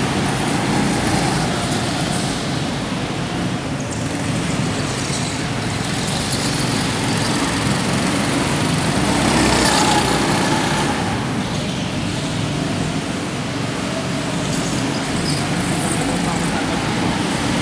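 Several go-karts' engines running as the karts lap the track, a steady mixed drone that grows louder about ten seconds in and again at the end.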